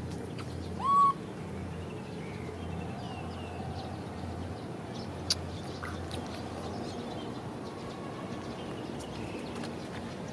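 A baby monkey gives one short, high coo about a second in, rising at its start and then held. A sharp click follows a few seconds later.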